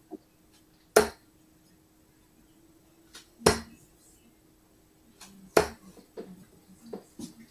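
Three darts thudding into a Winmau bristle dartboard, one sharp impact each, about two to two and a half seconds apart.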